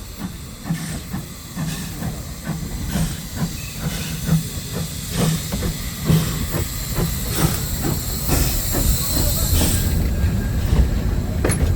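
Train running along the rails, with a steady rumble and repeated clicks of the wheels over the rail joints. A hiss of steam swells from about halfway through and falls away near the end.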